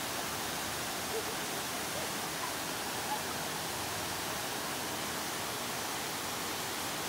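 Waterfall rushing: a steady, even noise of falling water with no break.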